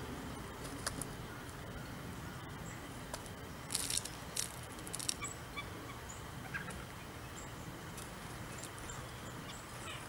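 Blue jay flying in to a platform feeder: a quick cluster of wing flutters and rustles about four seconds in, over steady low backyard background noise with faint distant bird chirps.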